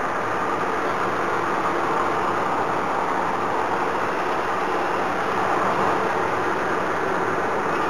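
Steady engine and road noise of a passenger van driving, heard inside its cabin.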